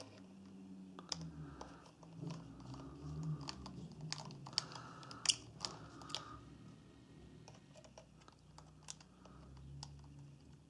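Faint, irregular clicks and scrapes of a precision screwdriver working the tiny Phillips screws on a Nikon D3100's flash housing, with small handling knocks on the camera body; the clicks come thickest around the middle.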